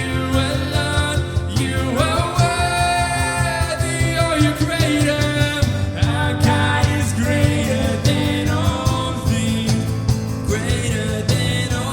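A worship song: a singing voice over a band with steady low notes underneath.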